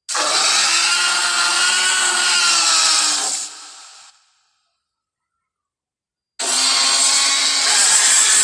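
Tyrannosaurus rex roar sound effect, built from movie dinosaur and monster roars: two long roars of about three and a half seconds each, the second starting about six and a half seconds in.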